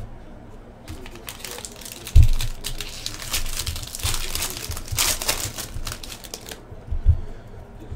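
Foil wrapper of a 2015 Bowman Draft jumbo trading-card pack being torn open and crinkled as the cards are pulled out, with a crackle that is thickest in the middle. There are two dull knocks on the table, about two seconds in and near the end.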